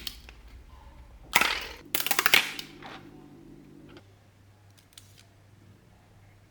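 Two quick bursts of hard plastic parts clicking and clattering, about a second and a half and two seconds in, typical of a 3D-printed piston-engine fidget toy being worked by hand.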